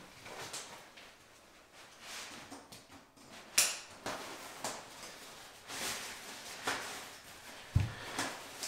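Nylon tent rain fly rustling and crinkling as it is pulled and fitted over the inner tent, with a sharp click about three and a half seconds in and a low thump near the end.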